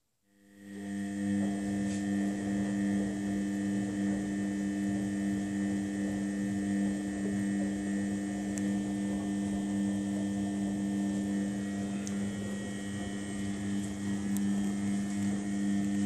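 Front-loading washing machine running with a steady electric hum. It comes up over about a second and stops abruptly near the end.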